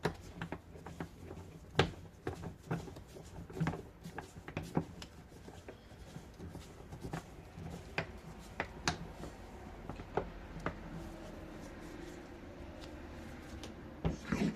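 Scattered light clicks and knocks of metal parts and tools being handled at a workbench, with a cluster of louder knocks near the end, over a faint steady hum.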